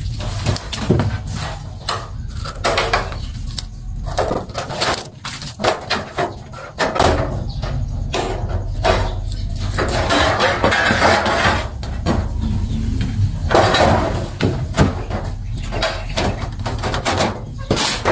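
Thin brass sheet being cut into a plate and handled: a run of sharp clicks and crinkly metallic rustles, with longer bouts of rustling about ten and fourteen seconds in, over a steady low hum.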